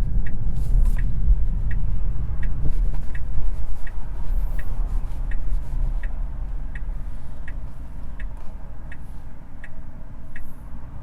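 Turn-signal indicator ticking evenly, a little under two clicks a second, over a steady low road and tyre rumble inside a Tesla Model 3's cabin.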